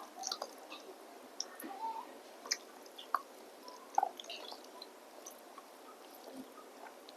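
Close-up mouth sounds of a person eating: chewing with small wet smacks and clicks, thinning out after the first few seconds.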